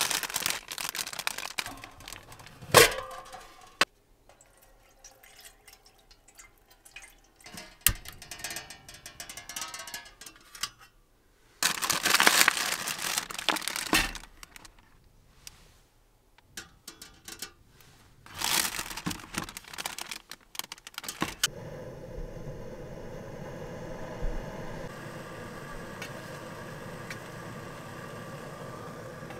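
Plastic wrapper crinkling and rustling in bursts as steamed buns are unwrapped and handled, with sharp knocks of an aluminium mess tin and its lid. About 21 seconds in, a steady hiss sets in: a small camping stove burning under the mess tin to steam the buns.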